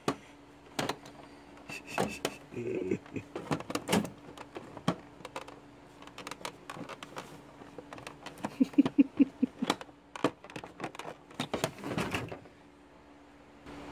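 Irregular plastic clicks, taps and knocks of a power window switch and its wiring connector being handled and pushed into the switch opening of a door panel.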